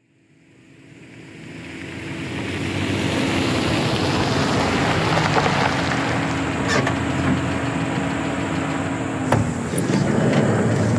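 Steady outdoor hum and hiss swelling in over the first few seconds. Near the end a sharp click is followed by the sliding side door of a Ram ProMaster van being opened, as the low hum drops away.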